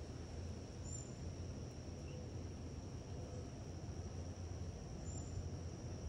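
A steady, high-pitched insect drone holding one pitch throughout, over a low background rumble. Two very brief high peeps come about a second in and again about five seconds in.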